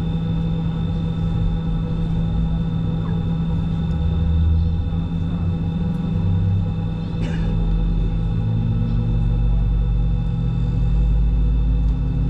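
Jet airliner's engines heard from inside the cabin while taxiing: a steady hum with several steady whining tones over a low rumble that grows heavier from about eight seconds in. A brief click sounds about seven seconds in.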